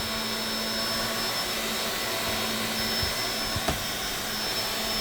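Vacuum cleaner running steadily: a constant rush of air with a low hum and a thin high whine, and a single brief click about three and a half seconds in.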